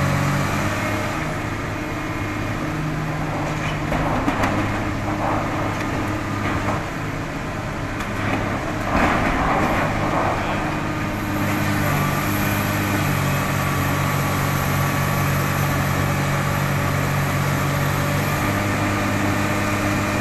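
Heavy diesel engine of a long-reach demolition excavator running steadily under load, its pitch shifting a little as the hydraulics work. Rougher bursts of noise come about four seconds in and again around nine to eleven seconds in as its jaw works the silo's steel.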